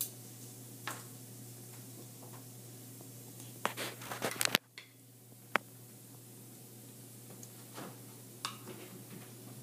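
Light clicks and taps of utensils against a plate while asparagus is being plated, with a quick cluster of clicks about four seconds in, over a steady low hum.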